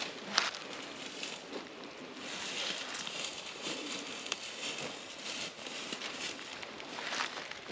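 Dry leaves and twigs rustling and crackling with small movements on the forest floor, with a sharp snap about half a second in.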